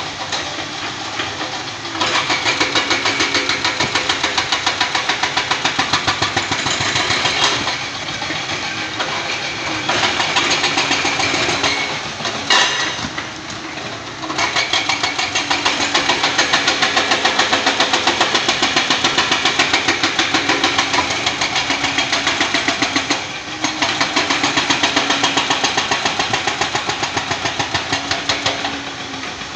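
Excavators working hillside rock: a rapid pounding at about four blows a second over running engines, in runs of several seconds broken by short pauses, with one sharp crack about twelve seconds in.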